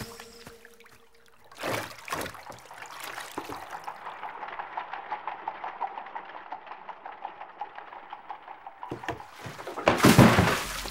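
Laundry scrubbed on a washboard in a tub of water: a steady run of scrubbing strokes, about four a second. About ten seconds in, a loud burst of noise covers it.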